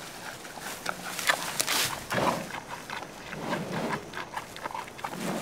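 Hamadryas baboon feeding on a leafy branch: irregular rustling and crackling of leaves and twigs, with chewing.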